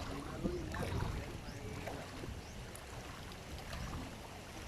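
Quiet outdoor background at a fishing pond: a steady low rumble with a few faint scattered ticks.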